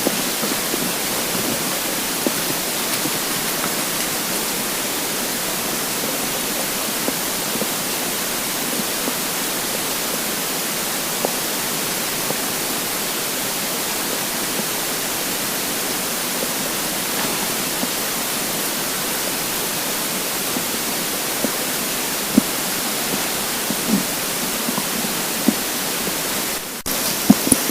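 Steady loud hiss of a heavily boosted close microphone, with a few faint, short gurgles from a hungry empty stomach in the last few seconds and a brief dropout near the end.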